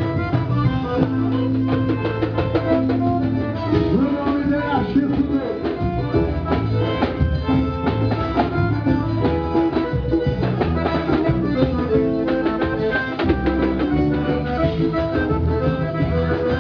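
Loud forró music with guitar, drums and a heavy bass line, played through a car sound system's speaker wall.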